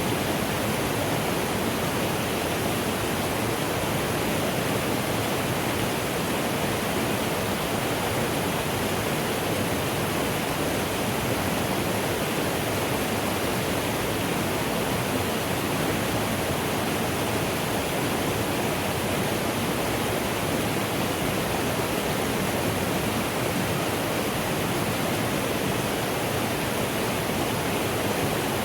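Mountain stream running steadily, a constant even rush of water.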